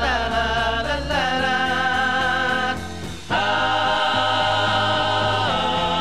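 Live band music with a male voice singing long held notes. The singing breaks off briefly just before the halfway point, then one long held note follows.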